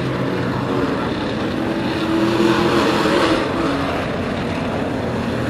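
A pack of race trucks' engines running at speed, the pitch rising and falling slightly as they go by. It swells loudest about two to three seconds in.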